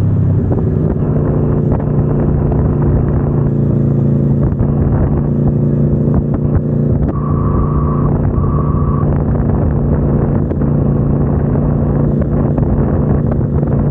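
Aprilia Tuono V4 1100 Factory's V4 engine running steadily at constant revs through its stock exhaust, heard from on the moving bike. Two short, high beeps sound about halfway through.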